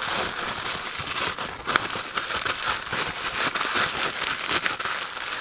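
Wrapping material crinkling and rustling as it is handled and folded around a shift knob, a dense run of small crackles.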